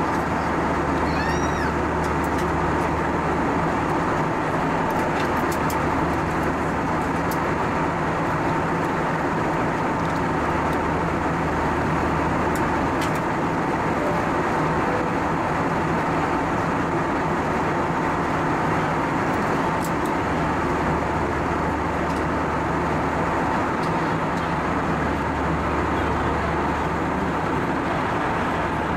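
Steady cabin noise of an Airbus A320 in flight, heard from a window seat: the rush of air and the drone of its IAE V2500 turbofan engines, with a steady whine over a low hum. A faint, brief high squeak about a second in.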